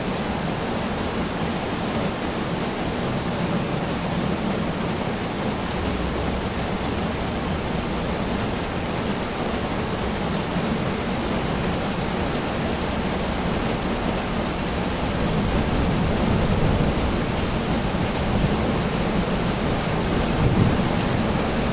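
Steady heavy rain falling, a dense even hiss with a low rumble beneath it that swells a little near the end.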